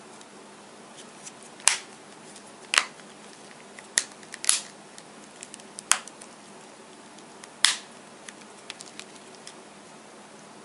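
Sharp plastic clicks and knocks from a red Nexus 5 smartphone being handled and set against a wooden desk: about six loud ones at irregular intervals, with fainter ticks between them.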